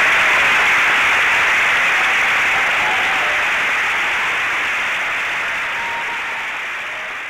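Theatre audience applauding steadily after a concert, the applause slowly dying away.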